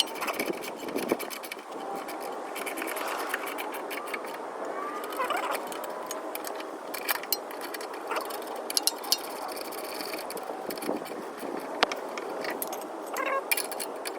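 Hand tools and metal suspension parts clinking, rattling and scraping at irregular intervals, with many sharp clicks, during work on a car's front coilover.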